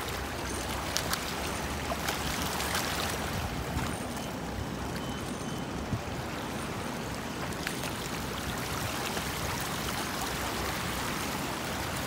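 Shallow seawater washing and lapping over a rocky reef shelf at the shoreline, a steady wash with a few faint clicks.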